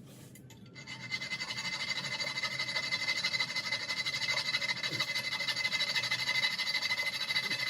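Small saw cutting through a toilet's protruding closet bolts: a rapid, steady rasping with a high ringing tone, starting about a second in.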